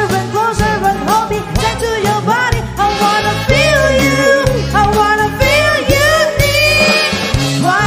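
Upbeat disco dance music with a singing voice over a steady, pulsing bass beat.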